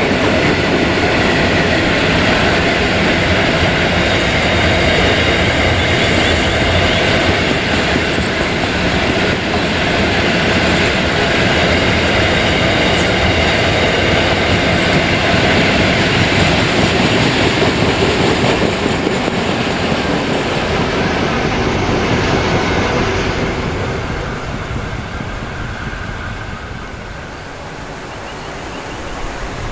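Loaded container freight train rolling past, its steel wheels running steadily on the rails. The sound fades over the last few seconds as the end of the train moves away.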